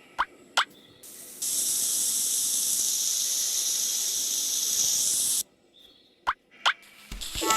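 A steady high hiss, like a spray, lasting about four seconds, set between pairs of quick rising drip-like plinks. Music starts near the end.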